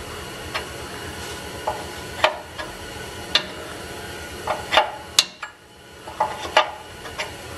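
Scattered light metallic clicks and taps as a hand handles and turns a barbed turbo oil drain fitting threaded into a steel return bung on the engine block, over a steady hiss.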